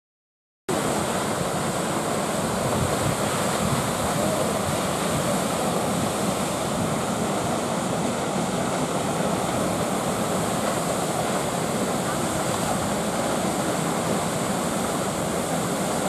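Düden Waterfall, a 40 m high fall of river water plunging off a sea cliff into the sea, rushing in a steady, even noise that starts about half a second in.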